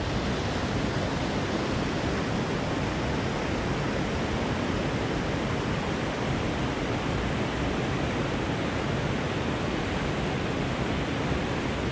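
Fast river water rushing over rocks and through a riffle: a steady, unbroken whitewater rush.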